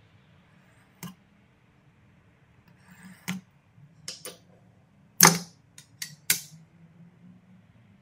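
Wooden workpieces and hand tools being handled on a bench: about eight separate sharp knocks and clicks, the loudest a double knock about five seconds in. No saw or other motor runs.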